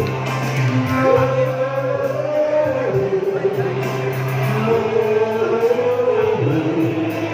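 Live amplified music: a woman singing a slow ballad over a strummed acoustic guitar.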